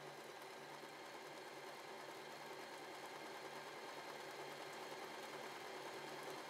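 W6 N1800 mechanical sewing machine running steadily and quietly, sewing a triple straight stitch through denim.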